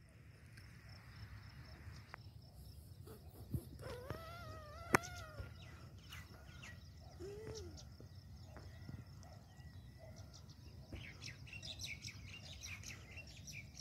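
Faint open-air farmland ambience with distant animal calls: a wavering call about four seconds in and a shorter rising-and-falling call about seven seconds in, over a faint steady high tone. One sharp click comes about five seconds in.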